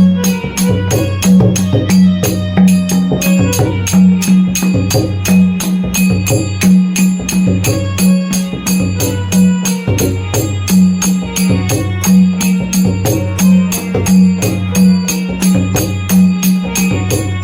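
Traditional Konkan festival drumming by two players: a deep, pitched drum beat repeating under fast, sharp strokes at about four or five a second, in a steady driving rhythm.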